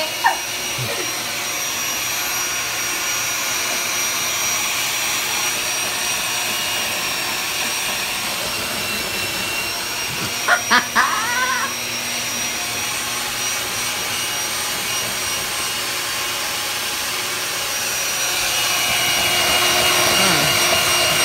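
Electric hand mixer running on its lowest speed, its beaters whirring steadily through batter in a plastic container with a thin motor whine. About ten seconds in come a few sharp clicks and a short, high wavering sound. The mixer gets louder near the end.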